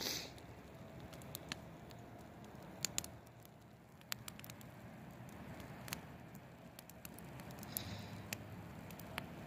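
Campfire of large stacked logs crackling faintly, with irregular sharp pops.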